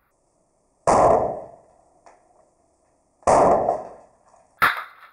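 Hammer blows smashing a metal-rimmed wall clock: two heavy crashes, about a second in and again about two and a half seconds later, each ringing briefly, then a sharper crack near the end.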